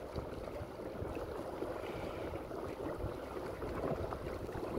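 Steady rushing and lapping of water along the hull of a small boat under way at nearly 3 knots, pushed by an electric trolling motor.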